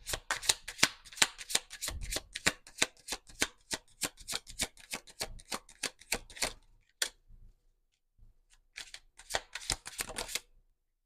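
A deck of tarot cards being shuffled by hand: a quick run of crisp card clicks and slaps, about four a second, for some seven seconds, a short pause, then a second brief run near the end.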